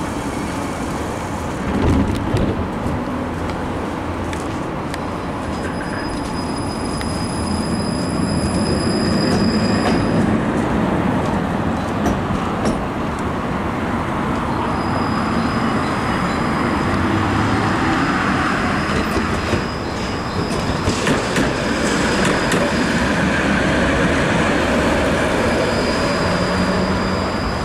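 71-931M Vityaz-Moscow low-floor tram running along the track, a steady rolling rumble with occasional knocks over the rails. A thin high whine comes and goes three times.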